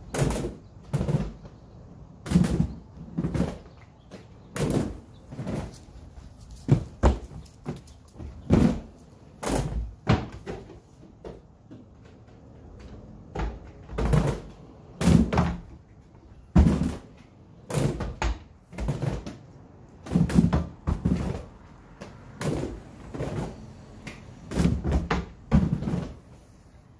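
Quad roller skates with Spitfire urethane wheels on a concrete floor: a run of heavy thuds, roughly one a second, as the skates come down on the floor, with a faint rolling sound in between.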